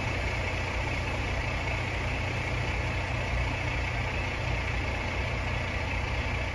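Steady rush of high-pressure water gushing from a fire hydrant sheared off by a vehicle: a deep, even rumble with a hiss over it.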